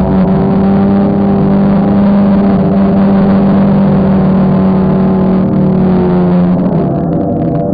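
Background music with long, held low notes that shift near the end.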